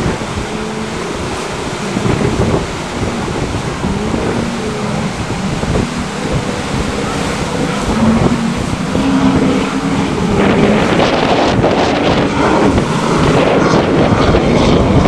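Wind buffeting the microphone over the drone of an offshore racing powerboat's engines as it pounds through rough sea, the noise growing louder about two-thirds of the way in as the boat comes nearer.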